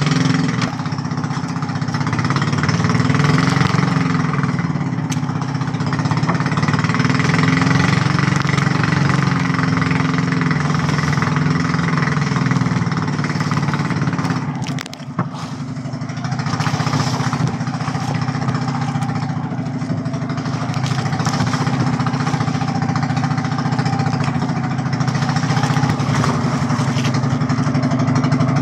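Small outrigger fishing boat's engine running steadily under way, its level dipping briefly about halfway through before picking up again.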